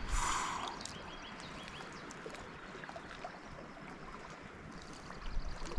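Quiet lakeside ambience: faint lapping water, with a brief rustle just after the start and a few light clicks.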